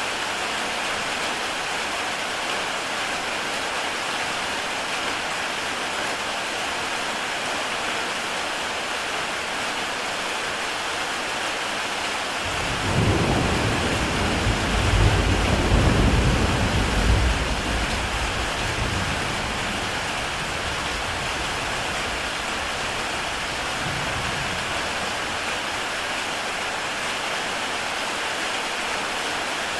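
Heavy rain falling steadily on a tile roof. A roll of thunder starts suddenly about halfway through, rumbles for several seconds and slowly fades away.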